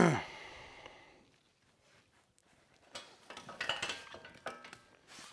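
Loose steel hardware and loader kit parts clanking and clinking as they are handled. One loud clank with a short ringing tail comes right at the start, then a run of lighter metallic clinks from about three to four and a half seconds in.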